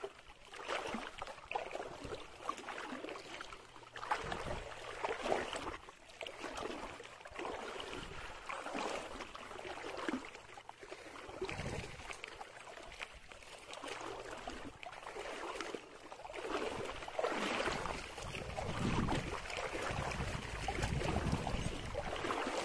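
Shallow water sloshing and swishing around the legs of someone wading along the bank, in irregular surges roughly one a second.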